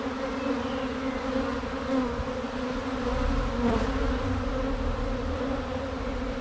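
Honeybee swarm buzzing: a dense, steady hum of many bees.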